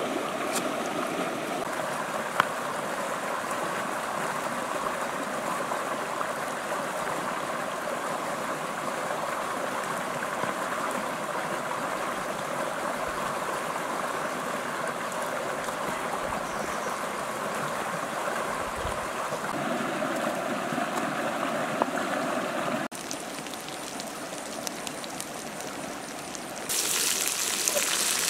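A shallow rocky stream running steadily, with one sharp knock about two seconds in. Near the end it gives way to the sizzle of crickets frying in a pan.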